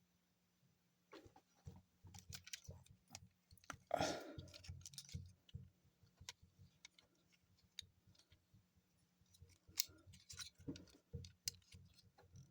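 Plastic parts of a Transformers Masterpiece Smokescreen figure clicking and rattling as it is handled and folded through its transformation, with a louder clack about four seconds in.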